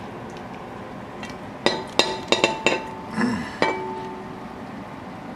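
A metal fork clinking against a ceramic bowl: about six sharp clinks over two seconds, each with a brief ring, and a soft thud in the middle as the braised lamb shank is set down.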